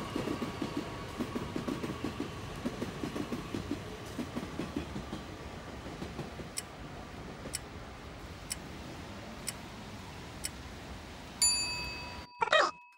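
Countdown-timer sound effect: quick ticking for the first few seconds, then a clock ticking about once a second, ending near the end in a bell-like chime and a short sweeping sound.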